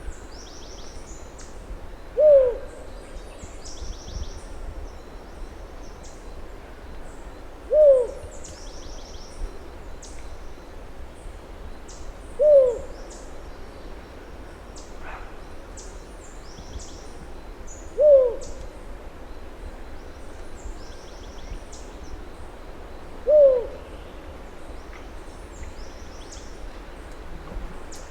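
Birds calling: a short, low hoot that falls in pitch, repeated five times about every five and a half seconds, over a steady background of thin, high chirps from other birds.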